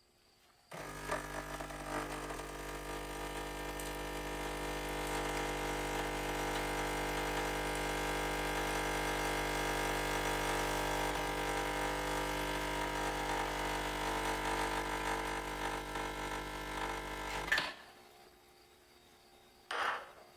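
A small electric appliance motor switches on about a second in, hums steadily for about 17 seconds and stops abruptly; a short knock follows near the end.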